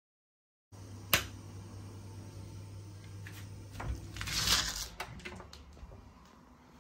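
Indoor handling noises over a low steady room hum: a sharp click about a second in, a few lighter taps, and a brief rustling swell near the middle.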